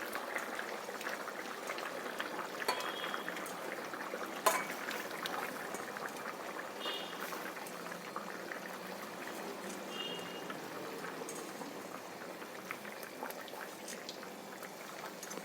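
Chicken curry gravy boiling in a pot: a steady bubbling, crackling sound, with one sharp knock about four and a half seconds in.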